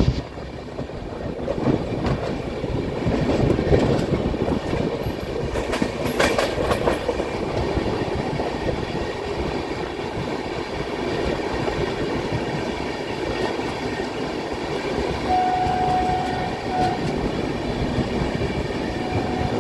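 Moving passenger train of the 12009 Shatabdi Express heard from an open coach door: steady running noise of wheels on rail with wind rushing past. A burst of sharp clicks comes about six seconds in, and a brief steady high tone sounds about three-quarters of the way through.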